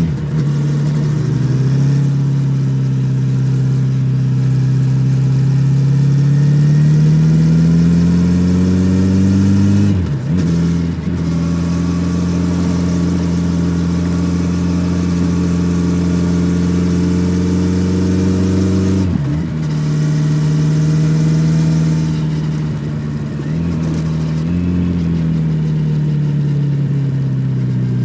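Kawasaki Z900RS inline-four engine through its stock full exhaust under way. The note climbs steadily for the first nine seconds, drops out briefly about ten and nineteen seconds in, and falls away near the end as the bike slows.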